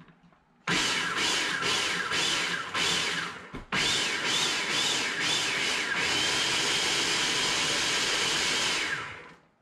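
Electric countertop blender puréeing a cilantro, lime juice and liquid sauce: two runs, a short one of about three seconds, a brief stop, then a longer run of about five seconds. The motor's whine wavers up and down in pitch at first, then holds steady before spinning down near the end.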